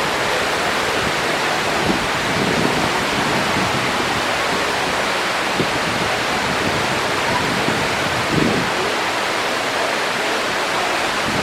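Man-made waterfall of the Mirage volcano lagoon, its water pouring and splashing with a steady, dense rush.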